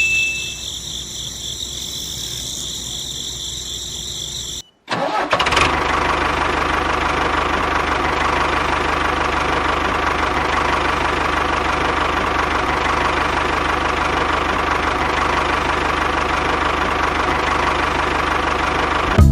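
A small motor running steadily with a high whine; it stops for a moment about five seconds in, and then a louder, rougher steady running sound continues.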